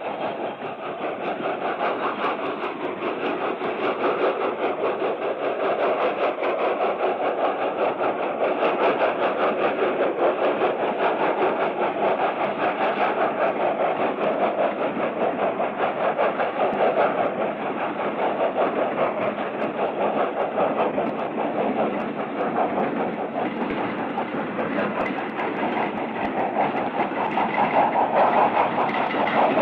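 Union Pacific 4000-class 'Big Boy' steam locomotive running at moderate speed, a dense rapid beat of exhaust and wheel clatter that grows louder over the first few seconds as it approaches.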